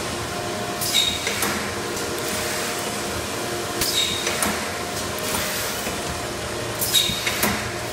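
Steady hum of workshop machinery with several steady tones, broken by brief sharp clicks with short hissing tails, in pairs about a second in, around four seconds and near the end.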